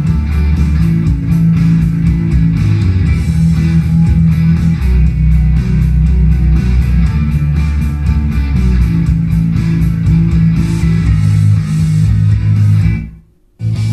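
Guitar music with a heavy bass line played back through a home-theatre soundbar as a sound-quality sample. Near the end the music cuts out for about half a second, then starts again.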